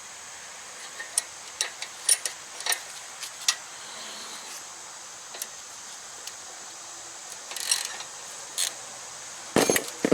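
Scattered sharp metallic clicks and clinks of hand tools working on the rear brake adjuster bolt, irregular rather than steady, with a louder knock near the end.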